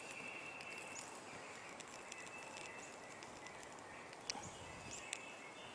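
Faint outdoor background: small birds chirping now and then over a steady, thin high-pitched tone, with two sharp clicks in the last second and a half.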